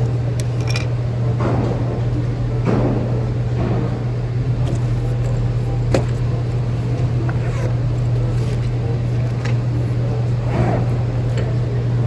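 A steady low hum with faint background voices, and one sharp knock about six seconds in.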